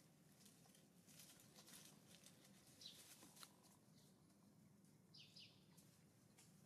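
Near silence: faint outdoor ambience with light rustling and clicks, and a few short high chirps that fall in pitch, one about three seconds in and two close together about five seconds in.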